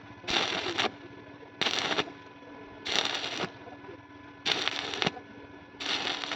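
Electric arc welding in short strikes: the arc crackles and sputters for about half a second at a time, five times, with brief pauses between, as when laying tack welds, over a faint steady hum.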